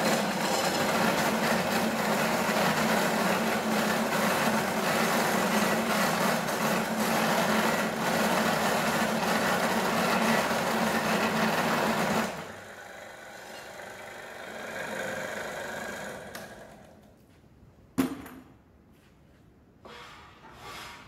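Metal-cutting circular cold saw running and cutting through steel round bar: a loud, steady whir over a low hum. About twelve seconds in the cut ends, the sound drops sharply and the blade winds down over a few seconds. Near the end comes one sharp metallic clank, then a few light knocks as the bar is handled in the vice.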